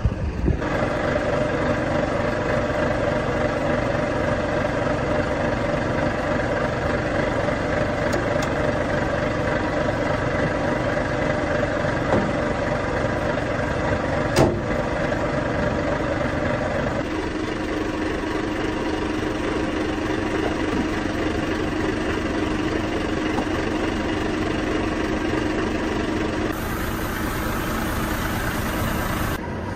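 A truck's diesel engine idling steadily; its hum shifts to a lower tone a little past halfway. A single sharp knock is heard about halfway through.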